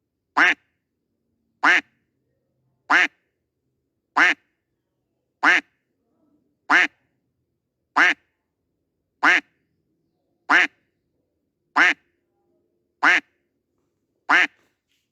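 A duck quack sound effect playing on a loop: the same short quack repeats evenly about every 1.3 seconds, twelve times.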